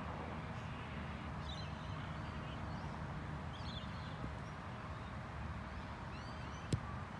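Steady background noise with a few faint bird chirps, and one sharp click about two-thirds of a second before the end.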